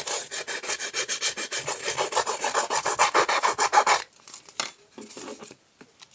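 Small metal file rasping quickly back and forth on polystyrene foam, several strokes a second, stopping about four seconds in; a few faint scrapes follow.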